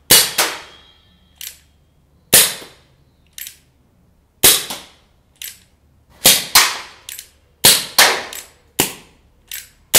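Crosman Sheridan Cowboy single-action CO2 revolver firing .177 pellets: a string of sharp cracks every one to two seconds, some in close pairs, with fainter clicks between the shots as the hammer is cocked for each one.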